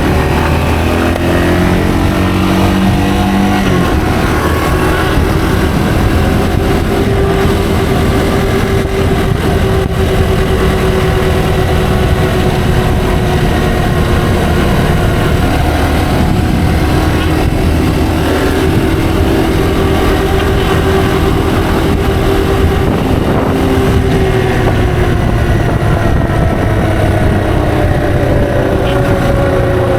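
Yamaha TW225's single-cylinder four-stroke engine under way, its note rising over the first few seconds with a gear change about four seconds in, then holding at steady cruising revs before easing off and falling over the last few seconds.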